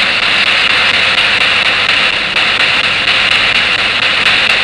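Spirit box sweeping through radio stations: a steady, loud static hiss with faint rapid clicks as it steps from channel to channel.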